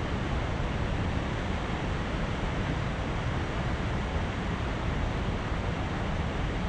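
Steady rushing of a waterfall pouring into a fast-flowing river, an even roar with no breaks.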